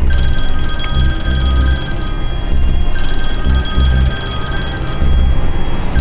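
Mobile phone ringtone ringing: a steady high electronic ring that starts suddenly and restarts about every three seconds. Underneath runs background music with a low pulsing beat.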